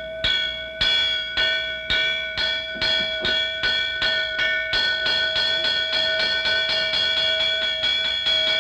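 Temple hand bell shaken to ring, its clapper striking about twice a second and quickening to three or four strikes a second about halfway through, keeping up a continuous bright ringing.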